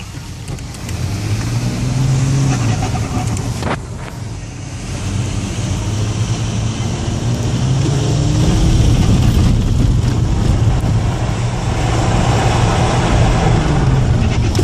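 Audi A6 2.5 TDI quattro's V6 turbo-diesel running under load on an icy track, its engine pitch rising and falling as it is driven. The level drops briefly just before four seconds in, when the throttle comes off, then the engine pulls hard again.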